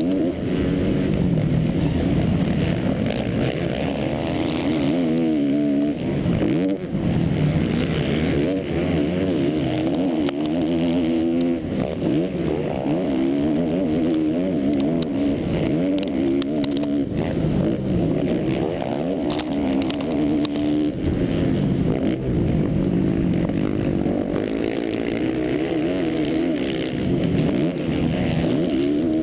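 Motocross race bike's engine, recorded on board, running hard with its pitch rising and falling over and over as the rider opens and closes the throttle, over a steady rush of wind and dirt noise.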